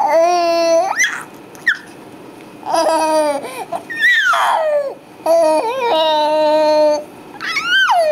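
Six-month-old baby cooing and babbling in about five long, drawn-out vowel sounds, mostly steady in pitch, with a high squeal about four seconds in and another near the end.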